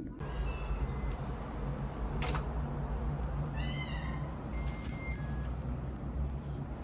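A short, high call that rises and falls, heard once near the middle, over a steady low hum, with a single sharp click a little earlier.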